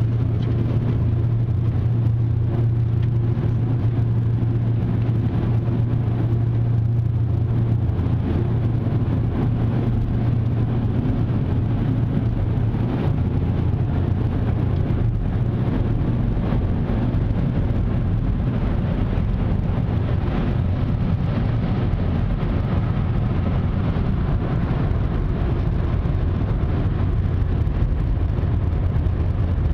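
Ryko SoftGloss XS 2 car wash air dryers blowing steadily, heard from inside the vehicle's cabin. A strong low hum weakens about twelve seconds in.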